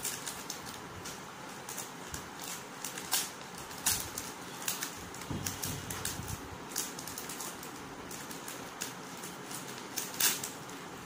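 Clear plastic packaging crinkling and crackling as a child pulls at a pack of socks, with irregular sharp clicks, the loudest near the end.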